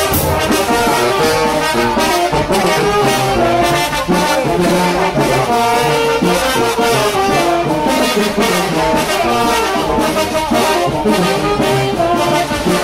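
Live Mexican brass band (banda) playing loud dance music: a sousaphone bass line under trumpets and other brass, with a steady drum beat.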